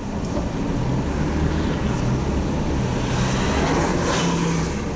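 Car driving on a road, its engine hum and tyre and road noise heard from inside the cabin, with a brighter rush of passing traffic about three seconds in.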